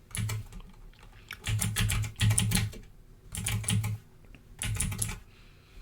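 Typing on a computer keyboard in four short bursts of rapid keystrokes, with brief pauses between them.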